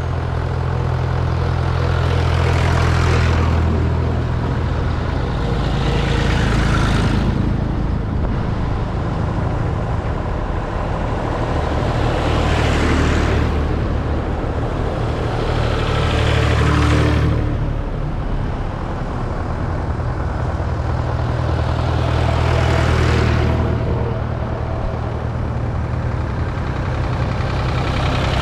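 Vintage tractors driving past one after another close to the microphone. A steady low engine rumble runs throughout, and each tractor's engine and tyres swell and then fade as it goes by, about six passes a few seconds apart.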